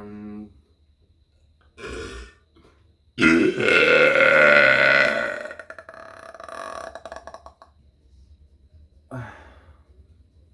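A person burping: one long, loud belch beginning about three seconds in, holding for around two seconds and then trailing off. Shorter, quieter sounds come before and after it.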